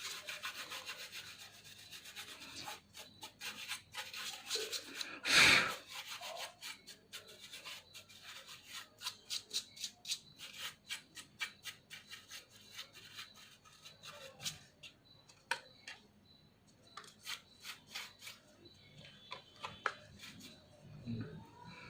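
Dust being brushed and rubbed off the inside of a laptop: steady scrubbing at first, then many short quick strokes, with one louder rub about five seconds in.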